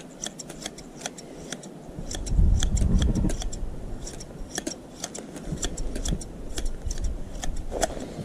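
Hand sheep shears snipping through fleece: a steady run of sharp metallic clicks, several a second. A louder low rumble comes about two seconds in.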